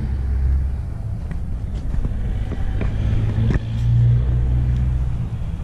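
Diesel engine of a Cat 740 GC articulated dump truck idling with a steady low hum, swelling briefly about four seconds in.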